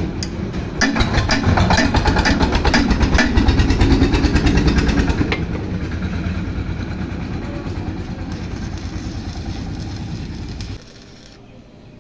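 An engine running with a fast, even firing beat, loudest in the first few seconds and then steadier and quieter, before it cuts off suddenly near the end.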